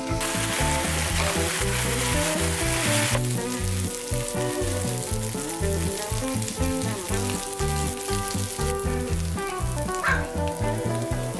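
Kimchi sizzling as it stir-fries in oil in a nonstick frying pan, loudest for about the first three seconds, then a quieter sizzle as the kimchi fried rice is stirred. Background music plays throughout.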